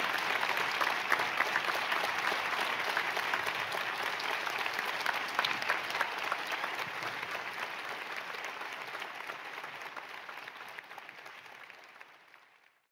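Large audience applauding, a dense steady clatter of many hands that fades away over the last few seconds.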